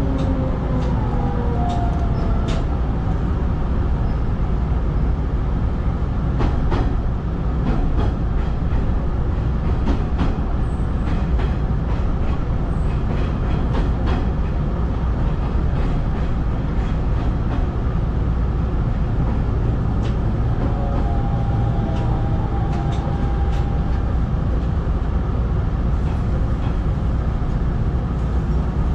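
Hanshin 5500-series electric train heard from inside the car: a steady running rumble with repeated clicks from the rails. Near the start the traction motors' whine falls in pitch, and a fainter motor whine comes back about two-thirds of the way in as the train nears a station platform.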